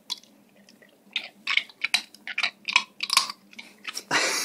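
Golden retriever crunching and chewing pistachios in their shells: a quick run of sharp crackly crunches, about four a second, starting about a second in. Near the end comes one louder, longer rush of noise.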